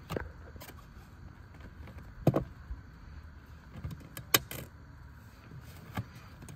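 Scattered sharp clicks and knocks of fishing tackle being handled while a rig is put together for a bait boat, the two loudest about two and four seconds in.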